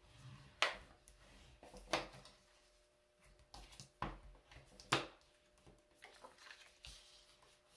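Cardstock being creased along its score lines with a bone folder and folded up by hand: about four short, sharp paper swipes with quieter rustling between.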